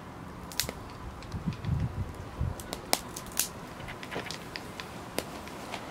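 Dry grass and twigs crackling as a small fire catches, with scattered sharp snaps and pops. A few low thuds come around two seconds in.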